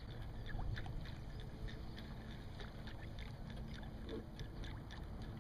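Low, steady rumble of a small fishing boat on calm lake water, with faint scattered light ticks.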